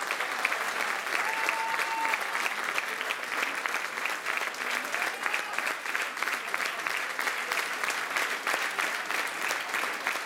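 Audience applauding: dense clapping from a large crowd, with voices mixed in.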